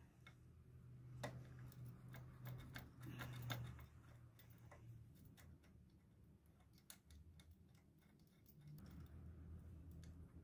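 Faint scattered clicks and taps of hands handling the LPG injector rail and its fittings, bunched between about one and four seconds in, over a low steady hum.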